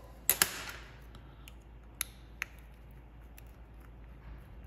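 Sharp clicks and taps of hard resin and plaster being handled: a screw-retained resin implant denture being worked loose from its plaster model after its screws are undone. Two loud clicks come close together just after the start, then two smaller ones about two seconds in.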